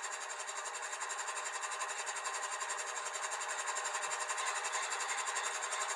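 HO scale model diesel locomotive's onboard sound playing a GE diesel engine through its small speaker: a steady, evenly pulsing run that grows slightly louder.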